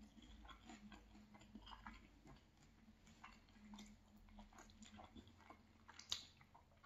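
Faint, close-up chewing of a bite of fried fish fillet: many soft, wet mouth clicks and smacks, with one sharper click near the end.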